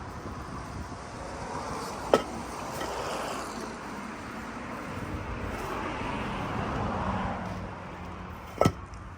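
A passing vehicle, its noise swelling and then fading over several seconds, with two sharp clicks, one early and one near the end.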